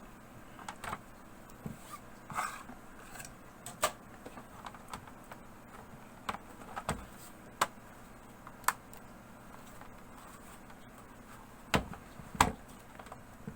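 Scattered sharp clicks and taps from hands handling the parts of an opened HP 14-CM0 laptop, with two louder knocks near the end.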